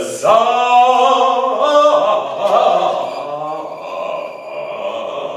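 A man singing in a classical early-music style, starting loudly and drawing out a long, ornamented phrase that gradually softens.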